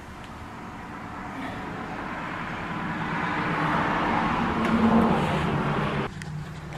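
A motor vehicle's engine and tyres, growing steadily louder as it approaches, then cutting off abruptly about six seconds in.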